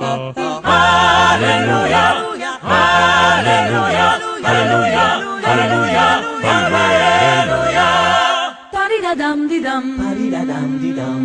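Music: several voices singing together in harmony, in phrases broken by short pauses, with a held low note near the end.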